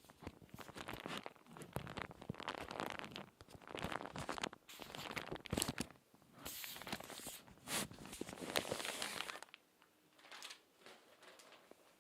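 Crinkly magazine pages being turned and squeezed by hand: dense, crackling paper crinkles in repeated bursts, growing softer and sparser near the end.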